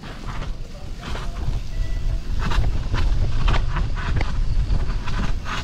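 Wind buffeting the microphone and a bicycle rattling as it rolls down a rough, wet concrete lane. The sound grows louder over the first second and a half as the bike picks up speed, with scattered clicks and knocks from the bike over bumps and cracks.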